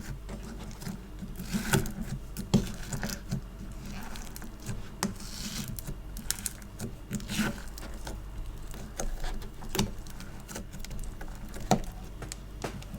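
Fingers pressing and pulling sticky store-bought slime or foam clay, making irregular sticky pops and clicks, a few sharper ones louder than the rest.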